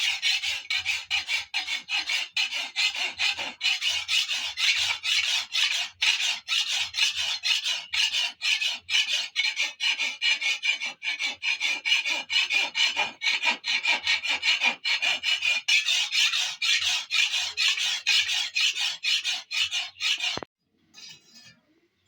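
A hand file rasping back and forth on metal in quick, steady strokes, about three a second, that stop abruptly near the end.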